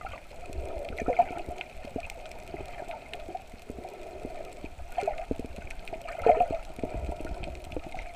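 Underwater sound picked up by a GoPro in its waterproof housing while snorkeling: a steady muffled rush of moving water with scattered light clicks. Louder gurgles come about a second in, again around five seconds, and most strongly around six seconds.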